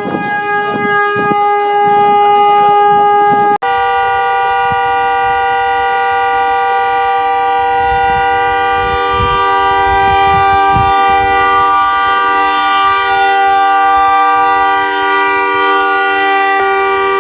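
Car horn held down in one long unbroken blast by a dog pressing it. It cuts off abruptly about three and a half seconds in, and a different horn sounding two tones together then blares steadily for the rest.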